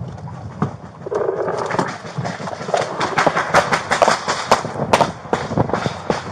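Rapid, overlapping gunfire from several guns: dozens of sharp cracks in quick succession, thickening about two seconds in and still going at the end.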